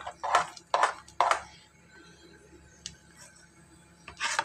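Silicone spatula stirring and scraping a thick rice dough around a steel pan, in quick strokes about two a second that stop after a second and a half, with one more stroke near the end. The dough has thickened and is starting to pull away from the pan.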